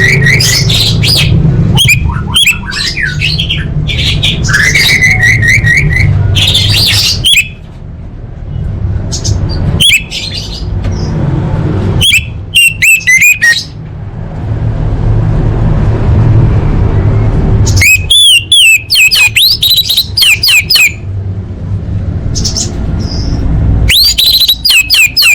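Orange-headed thrush singing: about seven bursts of rapid, varied whistled and warbled phrases, some sweeping up and down, with short pauses between them. A steady low rumble lies under the song.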